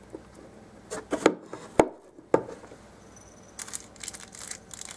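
Handling noise from a foam-core dollhouse room box being worked by hand: a few sharp clicks and taps from about a second to two and a half seconds in, the loudest near two seconds, then light scratching and rustling near the end.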